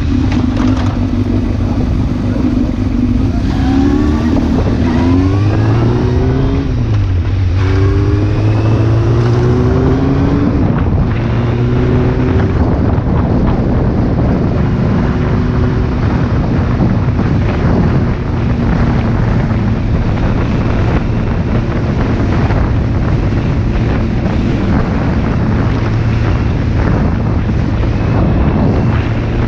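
Sport motorcycle engine accelerating, its pitch climbing in several short rises with a drop between each as it goes up through the gears, then holding a steady note while cruising. Heavy wind noise buffets the microphone throughout.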